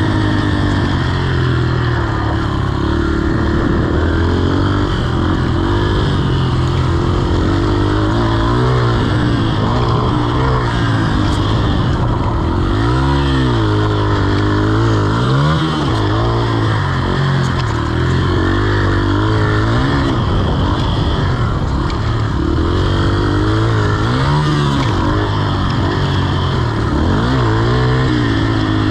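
Yamaha TTR-125's air-cooled single-cylinder four-stroke engine running under load as the dirt bike is ridden, the revs climbing and falling through the throttle and gear changes, with a couple of sharp rev swings in the middle and near the end. Wind noise from the helmet-mounted camera lies under the engine.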